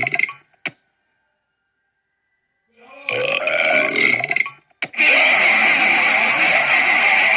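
A person burping: the end of one burp, then silence, a burp lasting about two seconds about three seconds in, and a long, loud drawn-out burp starting about five seconds in.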